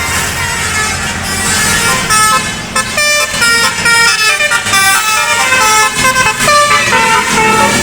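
Basuri telolet bus horn playing a tune of quick stepped notes, starting about three seconds in, over the noise of the bus.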